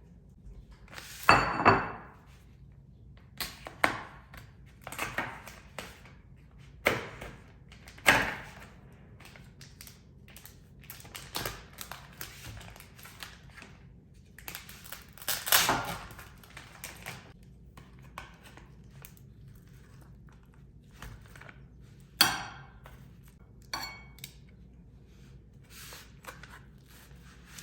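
Kitchen handling sounds: scattered knocks and clunks of dishes and containers being set down and moved on a counter, at irregular intervals. A few of them are drawn out for about a second.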